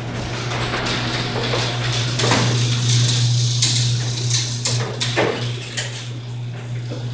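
Electric garage door opener running with a steady hum as an uninsulated garage door travels up, the door and its track clattering and rattling with irregular metallic knocks.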